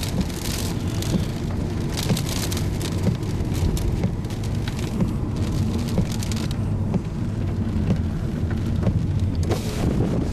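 Rain hitting the chase vehicle, heard as many quick sharp ticks over a steady low rumble of wind and vehicle noise.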